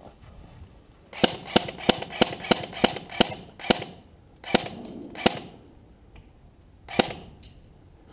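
Airsoft replica firing single shots: a quick run of sharp cracks about three a second, then a few more spaced out, the last about seven seconds in.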